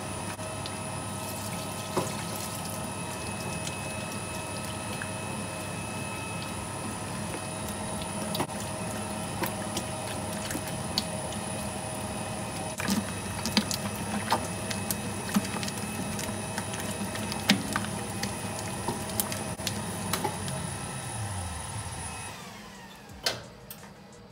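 Large commercial slime mixer running steadily with a motor hum and whine while it works a batch of basic slime, with scattered clicks and smacks. Near the end the motor is switched off and winds down, and a single click follows.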